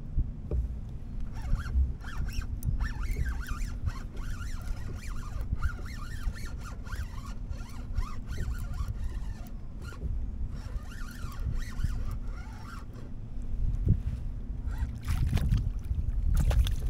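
Spinning reel being cranked to bring in a hooked fish, with a rapid run of small gear clicks and whirring, over steady wind rumble on the microphone.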